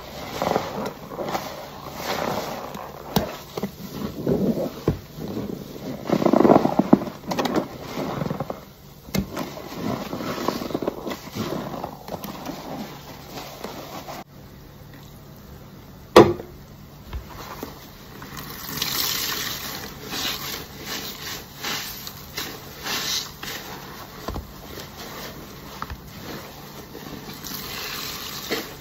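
Perforated car wash sponge full of laundry-detergent foam being squeezed and kneaded by hand, squelching wetly as the suds and soapy water are pressed out and splash back into the basin. One sharp click near the middle.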